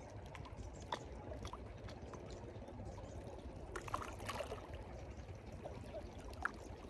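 Small waves lapping and trickling among shoreline rocks over a steady low rumble, with a few faint clicks. A slightly louder wash of water comes about four seconds in.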